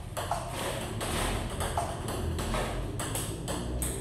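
Table tennis rally: the celluloid-type ball clicking off rubber-faced paddles and bouncing on the table, a steady series of sharp clicks about three a second.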